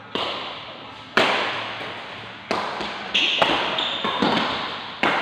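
Badminton rally: sharp smacks of rackets hitting the shuttlecock about once a second, each ringing out in the reverberant hall, with high shoe squeaks on the court floor near the middle.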